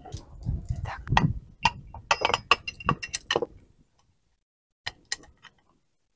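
Metal lid of an Afghan kazan pressure pot being fitted and clamped shut: a quick run of clinks and knocks of metal on metal, then a couple more about five seconds in.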